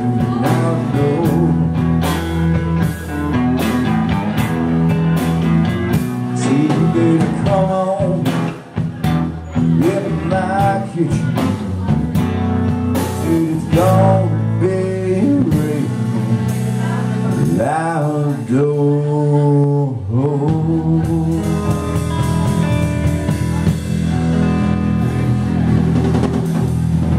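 Live blues band playing: a man singing into the microphone over electric guitar and a drum kit with cymbals. For a few seconds past the middle the drums and bass end drop away, leaving the bending vocal and guitar lines, before the full band comes back in.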